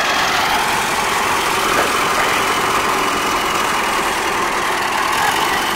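Diesel engine of a DT-75 crawler tractor, a combine harvester's engine fitted in place of the original, running steadily.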